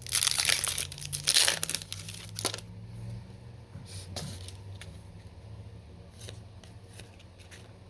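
Foil trading-card pack wrapper crinkling and being torn open for about two and a half seconds, then only faint scattered ticks as the cards are handled.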